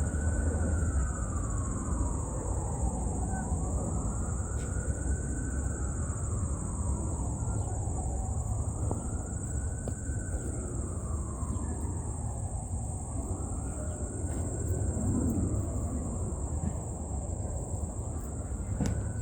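A distant siren wailing, its pitch rising and falling slowly about every four to five seconds, over a steady high buzz of insects and a low rumble.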